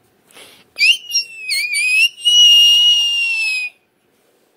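A person's shrill, high-pitched whistle. It starts about a second in as a few short wavering notes, then becomes one long held note that sinks a little before cutting off near the end.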